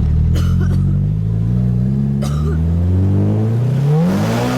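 Nissan SR20DET turbocharged four-cylinder engine pulling under acceleration, its pitch climbing steadily, then revving up sharply with a rushing hiss near the end before the revs drop.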